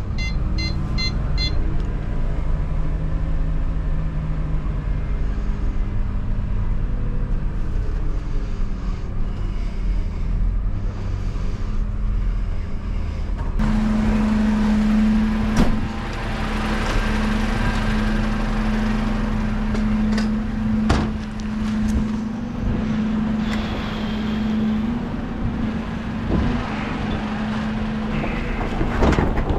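Dennis Elite refuse truck's diesel engine running, first heard from inside the cab. About halfway through it changes to a strong steady hum from the truck, with several sharp metallic clanks and rattles as a wheeled bin is brought up to the rear lift.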